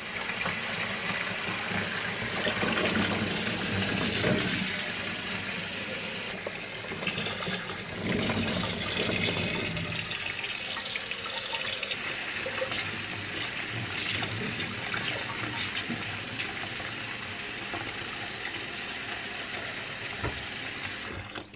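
Kitchen tap running a steady stream of water into a stainless steel sink full of cherry plums, splashing as the sink fills. The sound cuts off suddenly at the end.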